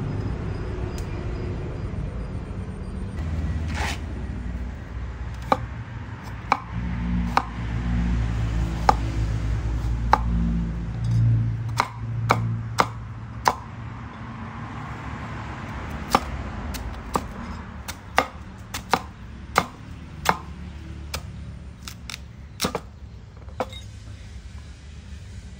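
Knife chopping a carrot on a thick wooden chopping board: a long series of sharp single chops, about one a second and quicker in places. A low rumble fills the first half.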